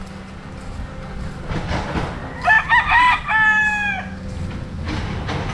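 A gamecock crowing once, about two and a half seconds in: a few short broken notes running into a longer held note that eases down at the end.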